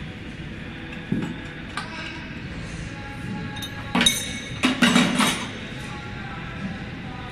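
Metal hold-down clamps and a spanner clinking against a CNC router's T-slot table as a workpiece is clamped down: a couple of light clicks, then a cluster of louder, sharp clinks about four to five seconds in.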